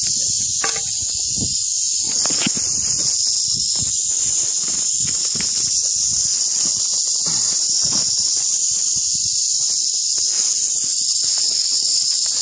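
Western diamondback rattlesnake rattling in a steady, unbroken high buzz, the defensive warning of an agitated snake pinned by the head with snake tongs. Scattered low rustles and knocks sound faintly beneath it.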